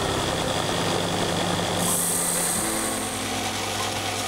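Belt sander running steadily while the end of a small metal screw is held against the moving belt and ground into a hook shape, a motor hum under a grinding hiss.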